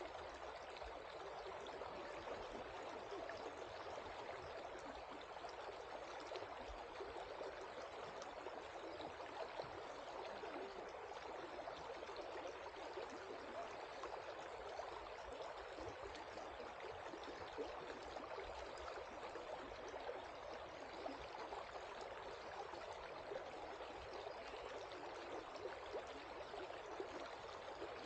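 Shallow river water running steadily over rocks and gravel.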